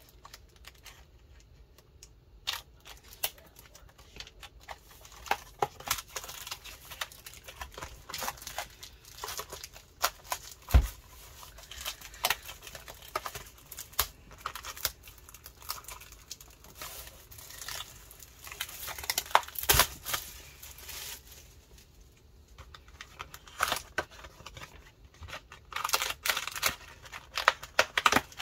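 Plastic shrink wrap being torn and peeled off a cardboard card booster box, crinkling and crackling in fits and starts. Two louder dull knocks partway through.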